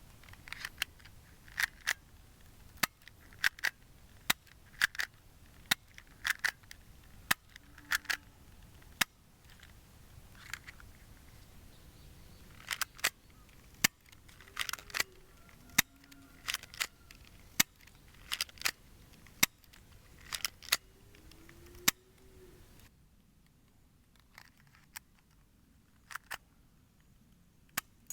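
Crown Walther PPK/S spring air-cocking airsoft pistol being handled and worked, making dozens of sharp plastic clicks and clacks, some single and some in quick pairs or clusters.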